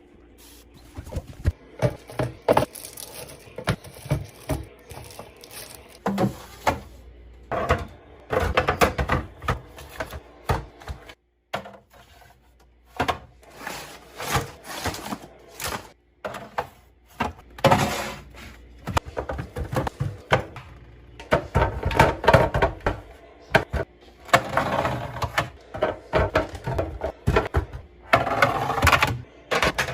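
Household items being handled and set down: an irregular run of clicks, knocks and clatter, with denser stretches of rustling and rattling.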